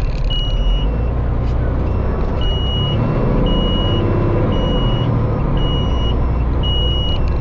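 Fire engine's diesel engine running as the truck rolls slowly forward, a steady low rumble. Over it, a high electronic beep of about half a second repeats roughly once a second.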